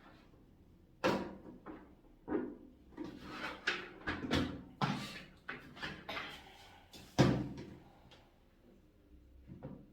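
A series of knocks and bangs from objects being handled, a dozen or so irregular hits, the loudest about a second in and about seven seconds in.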